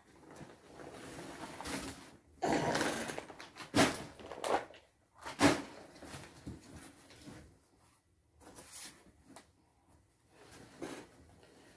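Rustling of produce and packaging being handled in a cardboard delivery box, with a longer stretch of rustling and then a few sharp knocks as items are picked up and set down.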